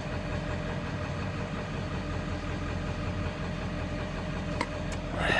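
Vehicle engine running steadily with a low, even rumble, with a couple of faint clicks near the end.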